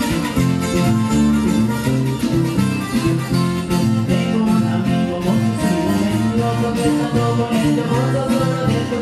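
Live carranga music: acoustic guitar and a tiple strummed in a quick, steady rhythm, with a guacharaca scraper keeping time.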